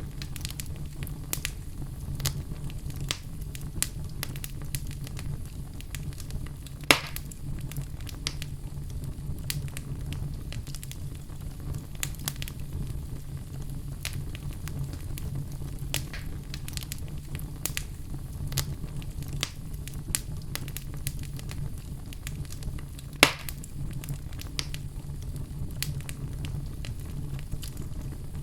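Fire crackling steadily over a low rumble, with many small pops and two louder snaps, one about a quarter of the way in and one near the end.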